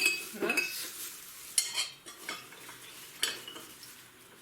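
A spoon scooping chopped raw pine cones, scraping and clinking against the dish in several quick strokes, with the last one about three seconds in.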